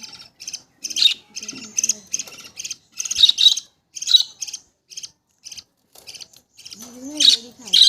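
Pet budgerigars chirping and chattering, a rapid run of short high calls with hardly a pause. A person's voice is heard briefly near the end.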